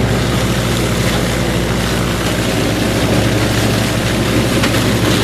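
Old tractor engine running steadily under load while a tractor-drawn stalk chopper grinds through a heavy row of corn stalks, with a dense whirring noise from the chopper over the low engine drone.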